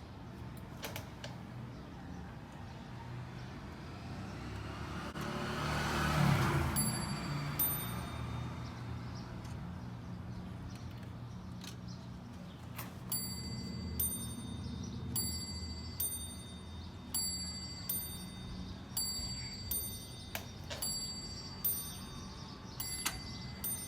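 Italian mantel clock striking its bell over and over, at about one strike a second. Each strike rings with a few clear high tones that die away. Two strikes come about a quarter of the way in, and the steady run of strikes starts about halfway through.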